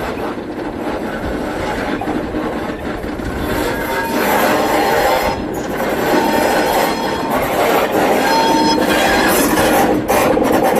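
Diesel locomotive running as it rolls slowly along curved track, growing louder as it draws near. Its steel wheels squeal on the curve in thin high tones that come and go, strongest near the end.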